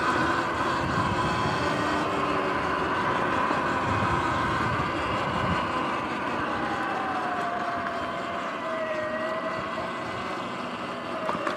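Sur-Ron X electric dirt bike's motor and drive whining steadily under a rushing noise from riding along a paved path. About halfway through, the whine slowly drops in pitch and the sound eases a little as the bike slows.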